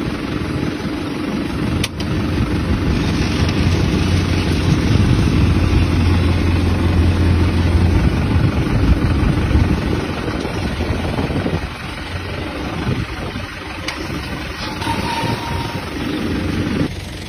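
Farm tractor engine running steadily with a heavy low hum. It gets quieter about two-thirds of the way through.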